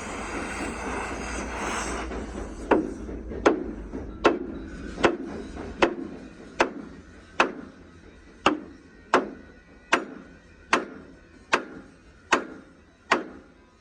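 Hammer blows at a steady, even pace, about one every 0.8 seconds, each a sharp strike with a short ring. A steady engine-like running noise cuts off about two seconds in, before the hammering starts.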